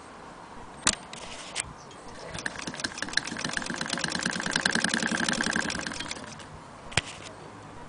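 Antique Willcox & Gibbs hand-crank chain-stitch sewing machine running as its wheel is cranked: a fast, even clatter of the needle mechanism that builds up, peaks in the middle and slows to a stop. A sharp click about a second in and another near the end.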